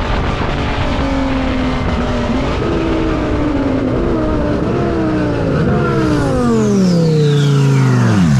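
Twin-turbo Lamborghini Huracán STO's V10 engine running under way. Its note climbs in a few steps, then falls steadily over the last three seconds as the car slows, with a high whistle sweeping down along with it.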